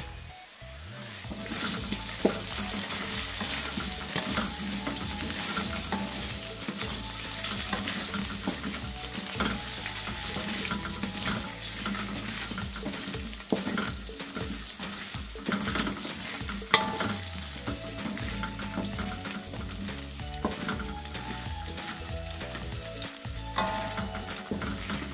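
Diced boiled potatoes sizzling in oil in a stainless steel wok, stirred with a wooden spatula. The sizzle grows louder about a second and a half in, and a few sharp scrapes or knocks of the spatula on the wok stand out here and there.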